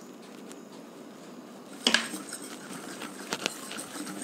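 Wire whisk clinking and scraping against a glass bowl as it beats a thick, creamy batter of oil and powdered sugar. A sharp knock about two seconds in is followed by quick light clicks of the wires on the glass.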